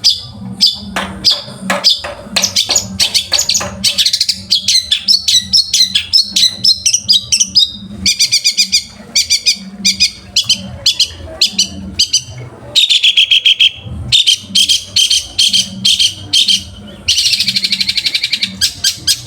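Long-tailed shrike (cendet) singing a fast, varied song of sharp chips, chatters and trills strung together as mimicked phrases. The pattern changes several times, ending in a rapid continuous trill.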